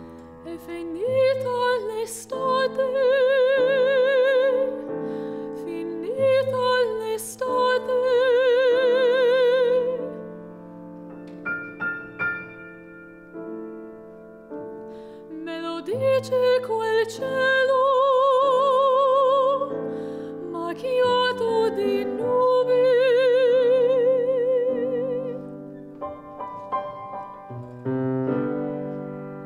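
A woman singing in a classical style with vibrato, accompanied by a grand piano. She sings in phrases ending on long held notes, while the piano plays alone for a few seconds in the middle and again near the end.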